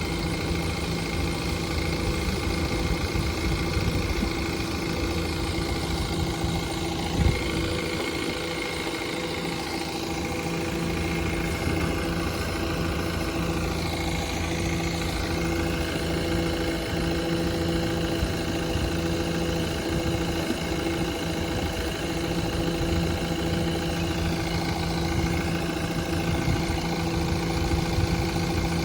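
Tata Hitachi Shinrai backhoe loader's diesel engine running steadily at idle, with one short knock about seven seconds in.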